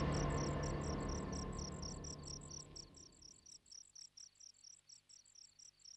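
Cricket chirping steadily in quick, regular pulses of about five a second, while the low tail of dramatic background music fades out over the first few seconds.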